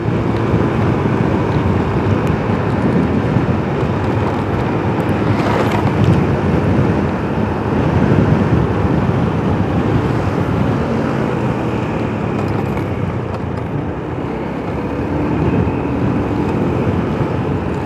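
Motorcycle riding at road speed: the engine runs steadily under heavy, even wind and road noise.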